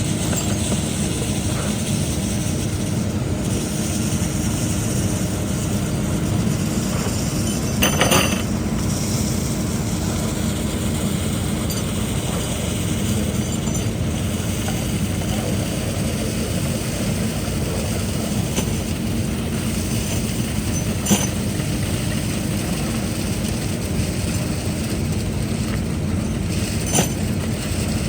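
Heavy diesel engine of a concrete truck running steadily under load, with a few brief knocks, the longest about eight seconds in.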